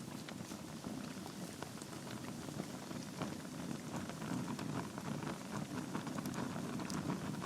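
Logs burning in a fireplace: a steady low rush of flame with many small, irregular crackles and pops.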